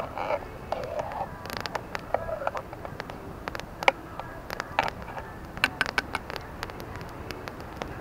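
Wood campfire crackling, with sharp irregular pops and snaps from the burning logs.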